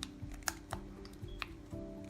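Background music with several sharp clicks and taps of a tool working at the glued plastic case of a power adapter as it is pried open.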